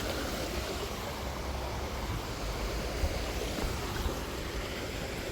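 Steady rush of water at a canal lock.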